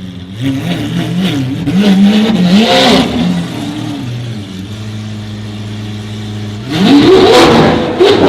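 Supercar engine revving in short blips, settling into a steady idle, then revving hard again near the end.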